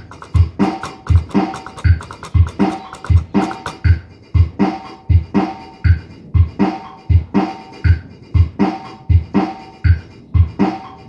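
Boss Dr. Rhythm DR-670 drum machine playing back a programmed beat: a steady repeating pattern of bass drum about twice a second, with snare and cymbal hits between.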